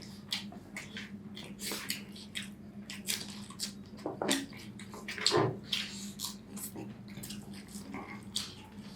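Wet chewing and mouth smacking while eating spicy chicken curry with rice, in many short irregular bursts, over a steady low hum.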